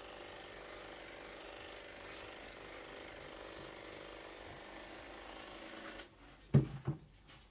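A steady mechanical hum of a small motor running, which cuts off abruptly about six seconds in. It is followed by two short knocks about a third of a second apart.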